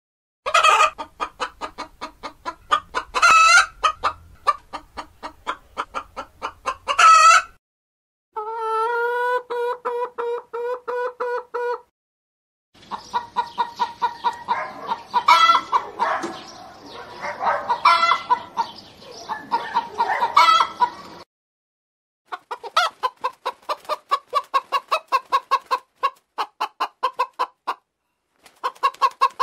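Domestic chickens clucking in several separate recordings cut together: first clucking broken by a few loud squawks, then one drawn-out wavering call, then many birds clucking at once, and near the end quick, evenly repeated clucks.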